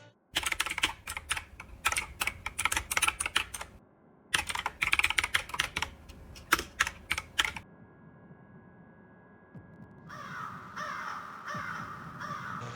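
Fast typing on a computer keyboard in two bursts of about three and a half seconds each, separated by a short pause. A faint steady tone follows, and crows start cawing repeatedly near the end.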